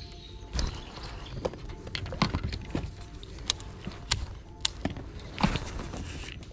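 Handling noise from a baitcasting rod and reel being worked during a lure retrieve: a string of sharp clicks and knocks, roughly one every half second or so, over a rustling noise.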